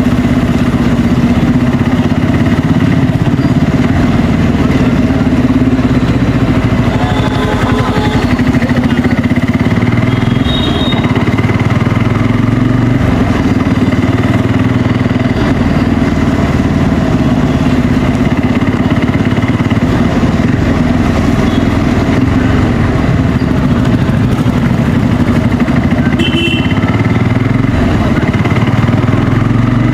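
Bajaj Pulsar N250's single-cylinder engine running through its stock exhaust at a steady, even pitch.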